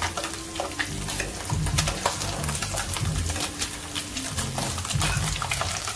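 Bacon sizzling and crackling in a non-stick frying pan while the strips are turned with a fork.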